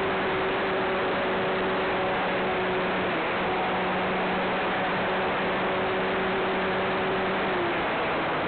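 Cessna 182 engine and propeller heard inside the cabin in flight: a steady drone over a wash of airflow noise. Its note steps slightly lower near the end.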